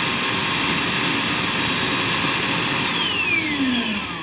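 Hyper Tough 1.5-gallon wet/dry vacuum (model VH105) running at full speed with a steady whine, then switched off about three seconds in, its motor winding down with a falling whine.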